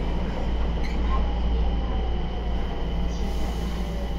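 Interior running noise of a Nagoya Municipal Subway Meijo Line 2000 series train: a steady low rumble of wheels on rail, with faint thin steady tones above it, as the train nears a station.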